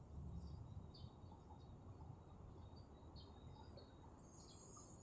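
Near silence outdoors: faint, scattered short high chirps of small birds and insects, with a steady high insect trill coming in near the end.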